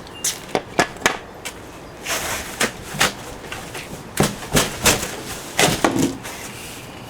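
Cardboard box being pulled open and handled: scattered knocks and thumps, with a scraping, rustling stretch about two seconds in.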